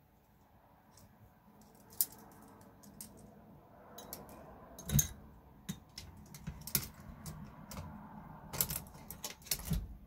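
Irregular clicks and taps of small plastic and metal parts on a Traxxas TRX-4 rear axle being handled and fitted by hand, over soft rustling. The loudest knock comes about five seconds in, and a quick run of clicks follows near the end.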